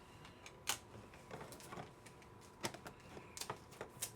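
Scattered light clicks and taps of hard plastic as graded trading-card slabs and card holders are handled between cards.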